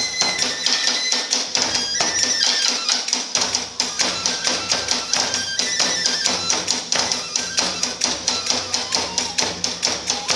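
Iwami kagura hayashi ensemble playing a fast, driving beat: rapid drum strokes and clashing small hand cymbals, under a transverse flute melody moving in held, stepped notes.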